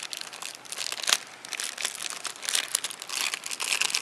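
Clear plastic wrapping crinkling as hands work a small camcorder out of it: a continuous run of rustles and crackles, with a sharper crackle about a second in and busier crinkling near the end.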